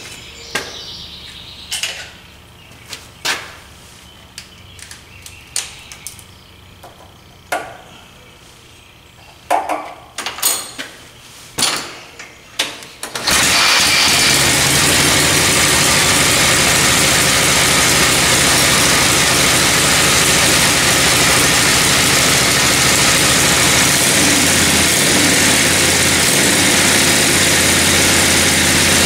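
V-twin motorcycle engine kick-started, catching suddenly about 13 seconds in and then running loudly and steadily. Before it catches there are only a few short knocks and clanks.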